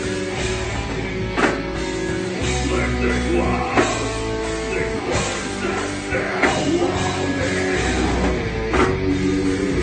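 Live heavy rock band playing, with distorted guitar, bass and drums and a singing voice.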